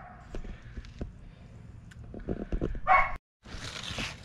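A dog barks once, loud and short, about three seconds in, after a few light knocks. The sound then drops out for a moment, and a steady outdoor hiss follows.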